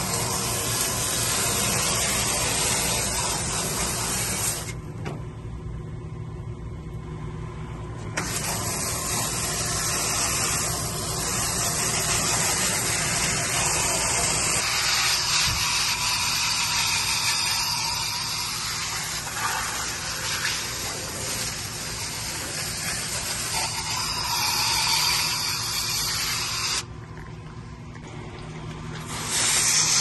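Water from a garden-hose spray nozzle jetting onto a package air conditioner's condenser coil fins: a steady hiss of spray as dirt is washed out of the clogged coil with plain water. The spray eases off twice, about five seconds in for about three seconds, and again near the end.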